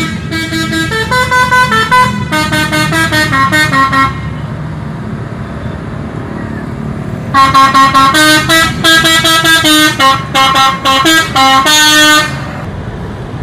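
A bus's multi-tone musical air horn ('telolet' horn) playing quick melodic runs of notes in two long bursts, the second starting about seven seconds in. The bus engine runs underneath.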